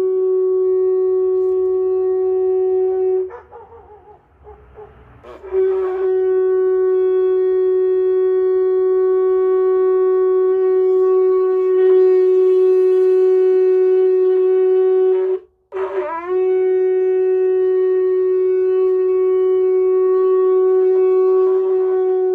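A funnel blown as a horn: one steady, loud, buzzy note rich in overtones, held in long blasts. One blast ends about three seconds in, a second runs about ten seconds from about five seconds in, and a third scoops up into pitch about sixteen seconds in and is still going at the end.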